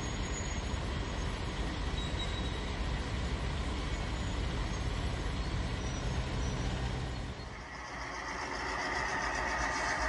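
HO scale model freight train rolling past with a steady low rumble, a low hum joining in briefly as the locomotive passes. About three-quarters of the way through, the rumble gives way to a higher, hissing sound.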